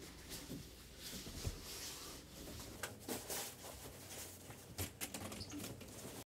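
Soft footsteps and clothing rustle, with scattered light clicks, that cut off suddenly near the end.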